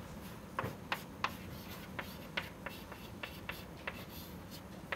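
Chalk writing on a chalkboard: a string of short, sharp, irregular taps and scratches, about a dozen, over a faint steady low room hum.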